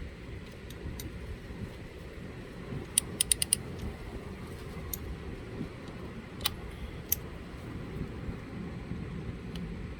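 Socket wrench working loose the oil drain plug on a Hawk 250 motorcycle's engine, with metallic clicks: a quick run of four about three seconds in, then a few single clicks, over a steady low background rumble.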